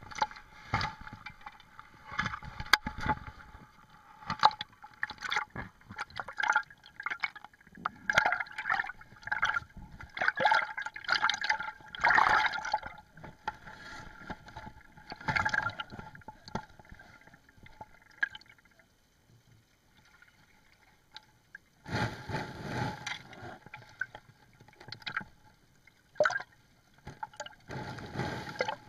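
Seawater sloshing and gurgling around an underwater camera housing at and just below the surface, with irregular clicks and knocks. It goes quieter for a few seconds past the middle, then the sloshing picks up again.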